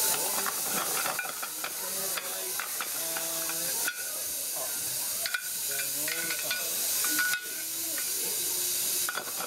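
Miniature steam locomotive standing in steam, hissing steadily, with a few clicks and knocks from the footplate.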